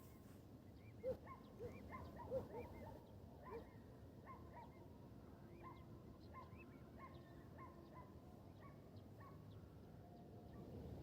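Faint series of short animal calls, roughly two a second, louder in the first few seconds and fading over the rest, over a low background hush.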